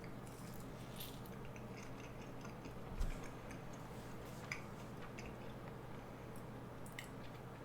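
Faint chewing of a soft marshmallow sweet, with a few small mouth clicks and a soft thump about three seconds in, over a steady low hum.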